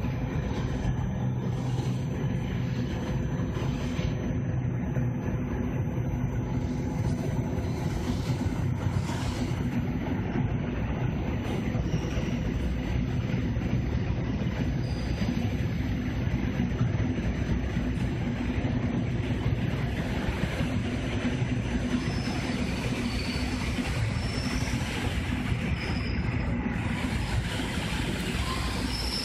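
An EN57 electric multiple unit pulling slowly into the platform: a steady low rumble of wheels and running gear. Short high squeals come in during the last several seconds as it slows to a stop.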